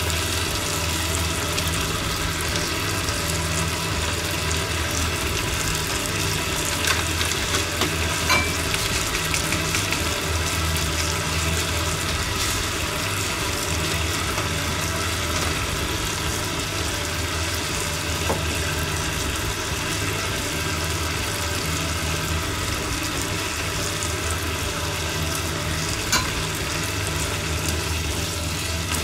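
Green pepper strips sizzling as they fry in seasoning in a nonstick frying pan, with a few light clicks of cooking chopsticks against the pan, over a steady low hum.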